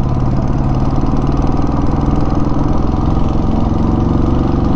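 Motorcycle engine running at a steady speed as the bike climbs a mountain road, its note holding even throughout.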